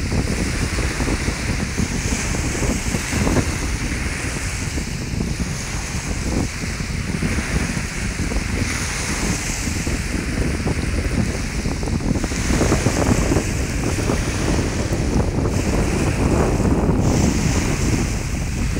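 Small Lake Erie waves breaking and washing onto a sandy beach, the wash swelling every few seconds, with wind buffeting the microphone in a steady low rumble.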